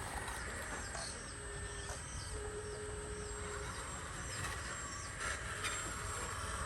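Small birds chirping now and then over a steady low hum, with a brief steady whine in the middle.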